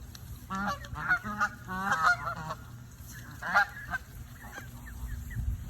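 Geese honking: several quick runs of honks in the first two and a half seconds, then one more call about three and a half seconds in.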